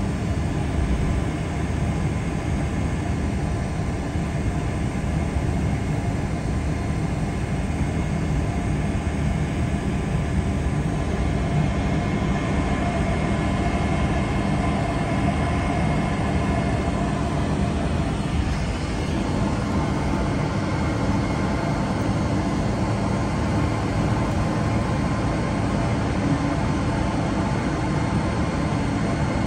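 Cabin noise inside a Boeing 777-300 taxiing: a steady low rumble from the engines at taxi power, with a faint whine over it.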